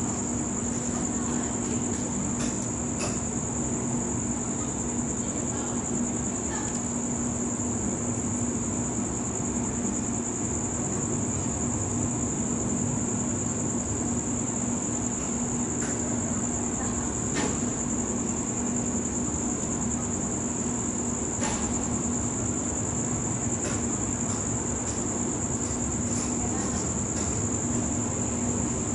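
Night insects trilling in one steady, unbroken high note, over a steady low hum and a few faint scattered clicks.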